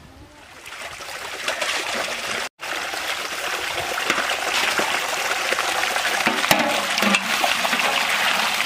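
Water running from a plastic pipe outlet and splashing as raw quail meat is washed by hand in an aluminium colander, fading in over the first couple of seconds and then steady. A couple of sharp knocks come past the middle.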